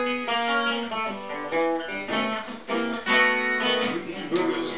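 Acoustic guitar strumming and picking the intro of a blues song.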